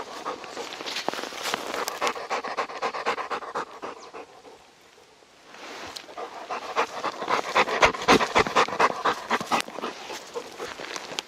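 Labrador retriever panting rapidly and hard, with a brief pause a little past the middle.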